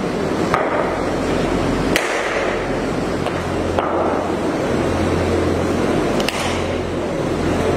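Sharp single knocks of a cricket ball on bat and practice mat, four of them a second or two apart, over a steady loud rushing noise with a low hum.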